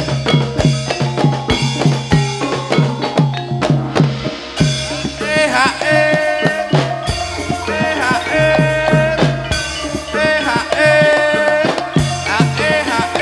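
Banyumasan gamelan music for an ebeg hobby-horse dance, amplified through loudspeakers: a steady drum beat of about three strokes a second under melodic metallophones. A wavering, bending melody line comes in over the beat about five seconds in and again near ten seconds.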